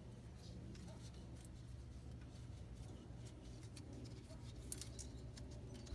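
Faint scattered clicks and light metal taps from a gloved hand handling a car's rear brake rotor and caliper bracket, with a few sharper clicks close together near the end, over a steady low hum.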